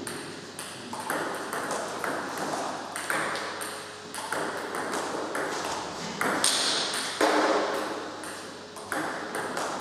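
A table tennis rally: the ball cracks off the rubber-faced bats and bounces on the table, a sharp click about every half second to second. The drill is backhand topspin played against backspin.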